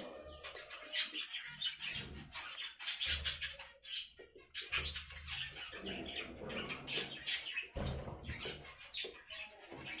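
Budgerigars chattering: a busy run of rapid, high chirps and warbles, with a short lull about four seconds in.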